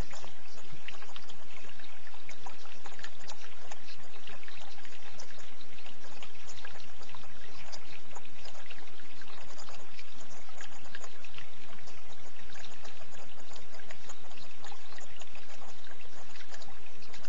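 Running water trickling steadily: an even rush dotted with many small splashes.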